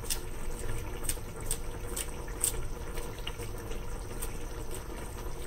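Thick curry bubbling at a boil in a pot, with frequent irregular small pops as bubbles burst, over a faint steady hum.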